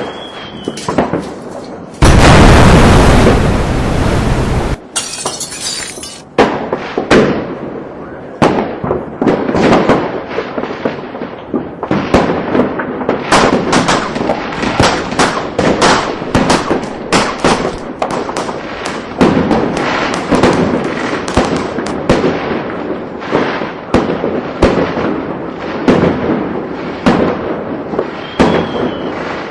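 Fireworks going off: a rapid barrage of sharp cracks and pops. About two seconds in, a loud rushing blast runs for about three seconds, followed by a brief high hiss, then a dense run of crackling bangs continues without a break.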